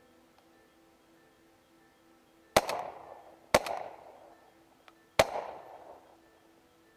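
Shotgun fired three times, about a second and then a second and a half apart, each shot trailing off in an echo.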